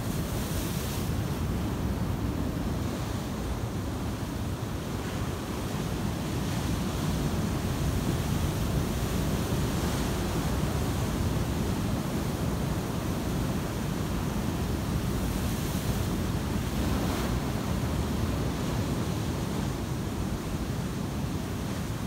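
Pacific Ocean surf breaking and foamy whitewash rushing over the shore in a continuous wash, with wind buffeting the phone's microphone.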